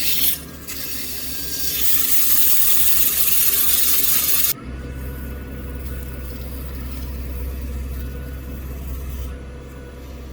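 Wood lathe motor running with a steady hum while a tool or abrasive works the spinning epoxy-and-birch blank. A loud rushing hiss builds about a second and a half in and cuts off abruptly about three seconds later, after which the lathe runs on with a lighter scraping.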